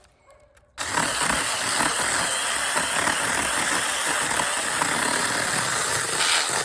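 Saker 20-volt cordless mini chainsaw starting suddenly about a second in and running steadily with a constant whine, cutting through a branch.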